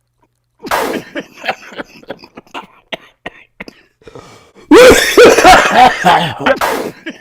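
A man coughing in a fit after a hit from a mango-flavoured vape. It starts with a run of short, hacking coughs, then about two-thirds of the way in turns into much louder, harsher coughing with strained, voiced gasps, loud enough to distort.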